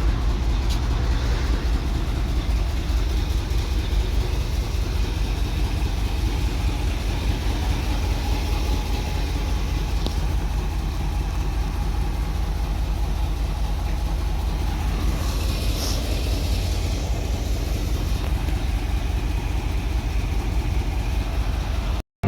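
ZIL truck's petrol engine running steadily as the truck drives along, a constant low rumble. The owner says this engine backfires and lacks pull, with its carburettor and ignition out of tune.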